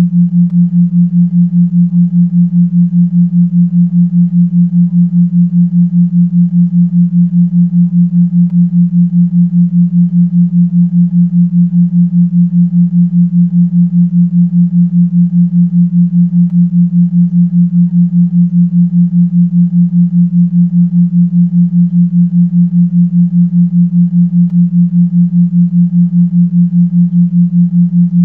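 A loud, low sine-like tone pulsing evenly about four times a second: the masking track of a subliminal recording, with a faint layered sound beneath it where the affirmations are buried.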